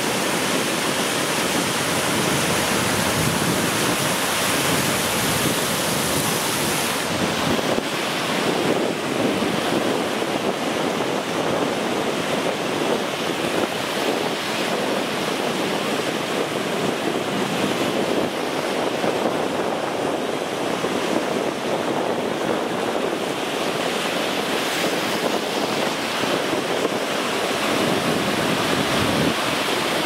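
Sea surf breaking and washing in the shallows of a sandy beach, a steady rush of waves.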